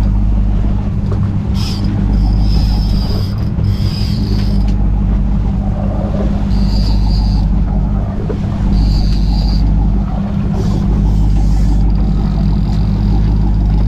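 Fishing boat's engine running steadily at trolling speed, heard from on board as a low even hum, with a higher hiss coming and going over it.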